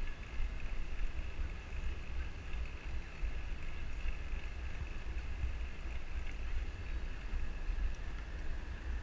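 Wind buffeting the microphone of a GoPro on a moving bicycle, a steady rumble, with a faint steady high-pitched tone over it.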